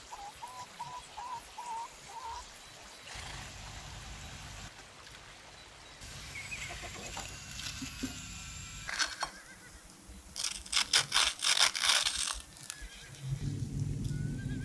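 Deep-fried, crumb-coated potato fingers handled with a metal fork. Over a faint hiss, a run of sharp crackles and clicks comes in the second half as the crisp fingers are moved about. A short wavering whistle-like tone sounds at the start, and a low steady hum comes in near the end.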